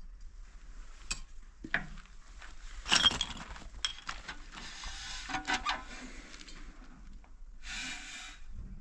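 Irregular knocks, clinks and scraping of hard objects being handled. The loudest is a clattering knock about three seconds in, and a short burst of hiss comes near the end.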